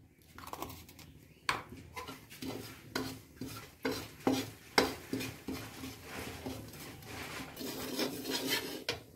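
Perforated steel spatula stirring spices roasting in oil in a metal kadhai, clinking against the pan about twice a second, then scraping more steadily near the end.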